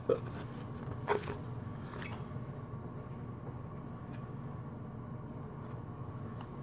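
A few brief rustles and clicks of hands handling a cloth drawstring pipe bag and pulling out a paper card, the sharpest just after the start and about a second in, over a steady low hum.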